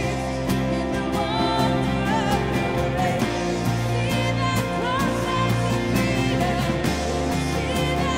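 A worship song played live by a band: a woman sings lead into a microphone over electric guitar and a steady beat.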